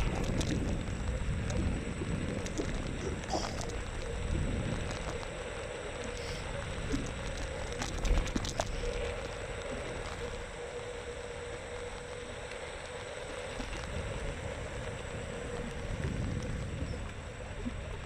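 Xiaomi M365 electric scooter being ridden: steady low wind and road rumble on the microphone, with a faint steady whine through the middle stretch and a few sharp clicks, the loudest about eight seconds in.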